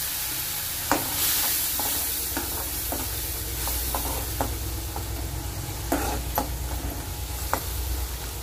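Lemon juice sizzling in hot oil in an aluminium kadai, with a steady hiss, while a metal spoon stirs it and clinks against the pan about a dozen times.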